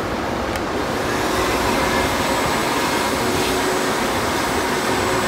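Coin-operated car wash vacuum running: a loud, steady rush of air with a faint hum.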